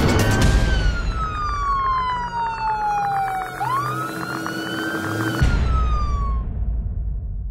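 A siren wailing: one tone falls slowly for about three seconds, sweeps quickly back up, then falls again, over a music track with a beat. The bass of the music drops out for about two seconds midway and comes back.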